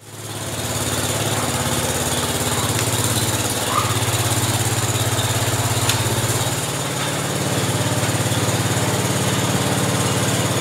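Wheel Horse garden tractor's small engine coming up to speed within the first second and running steadily, working under load as it pulls a rope to strip a deer's hide. Its level dips briefly twice.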